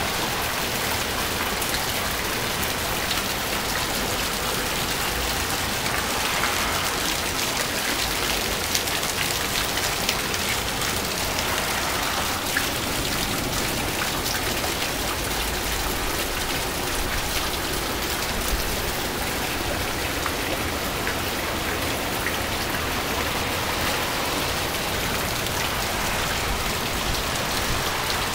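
Heavy rain falling steadily on a flooded street, concrete walkway and brick paving: a dense, even hiss of drops flecked with fine patters.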